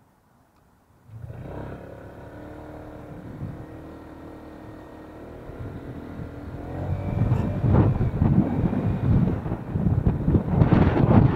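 Honda ADV150 scooter's 149 cc single-cylinder engine, heard from about a second in, running steadily at first and then accelerating with the scooter under way, with wind noise on the microphone growing louder toward the end.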